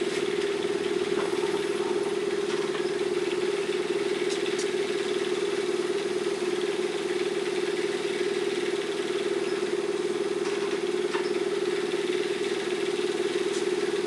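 Steady drone of a running motor, unchanging throughout, with a few faint clicks over it.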